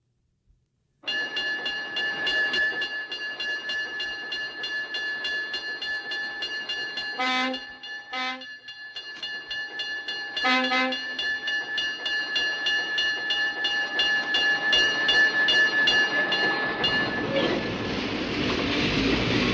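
Diesel locomotive bell ringing with steady, regular strokes, with three short horn blasts around the middle. Near the end the locomotive's engine noise swells as it starts off.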